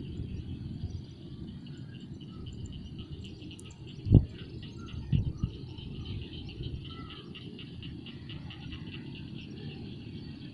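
Rapid, even chirping of insects, a steady high-pitched pulse, over a low rumble. A sharp thump comes about four seconds in, with a softer one a second later.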